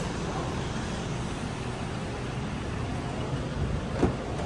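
Small MPV pulling up and running at idle, a steady engine-and-traffic hum. About four seconds in, a single click as its door handle is pulled.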